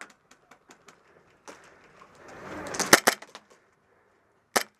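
Airsoft guns firing. Faint quick pops come about four to five a second at first. A rustling noise then builds into a cluster of loud snaps about three seconds in, and two more loud snaps come near the end.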